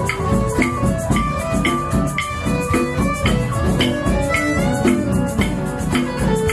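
Music performance: pitched instrumental notes moving over a steady beat of about two strokes a second.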